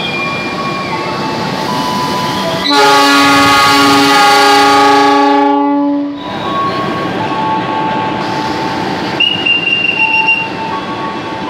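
GE CC206 diesel locomotive sounding its horn in one long blast of about three seconds as the departure signal is given, its diesel engine running steadily underneath. Near the end a shrill whistle sounds for about a second.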